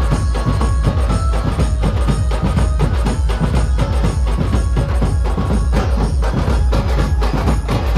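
Dhumal band playing loud, rapid drumming over a heavy bass beat, with a sustained melody tone above.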